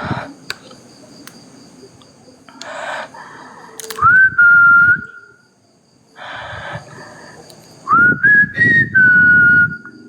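Whistling: two long whistled notes, one about four seconds in and one near the end, each sliding up and then held steady for about a second. The second wavers before it settles. Short breathy hisses come in between.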